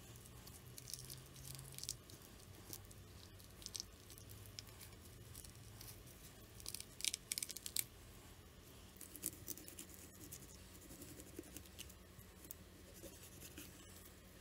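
Faint wet tearing and crackling as gloved hands split a herring open and peel its flesh from the backbone, in short scattered bursts, the loudest cluster about seven seconds in.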